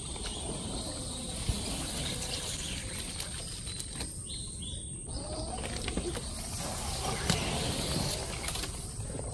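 Quiet mangrove ambience under a slowly paddled canoe: soft water and paddle noise, two sharp clicks, and a short two-note bird chirp about four seconds in, over a steady high tone.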